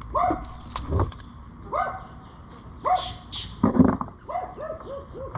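A dog barking repeatedly, about once a second, with a quick string of short yips near the end. A brief sharp noise comes about a second in.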